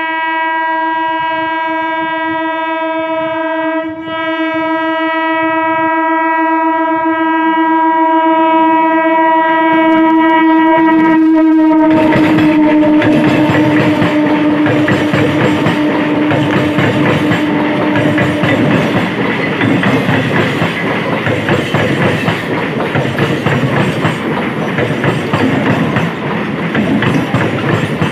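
An Indian electric local train (EMU) sounds one long, steady horn blast, with a brief dip about four seconds in. About twelve seconds in, the train passes close by with loud wheel clatter over the rail joints, while the horn fades out under the noise.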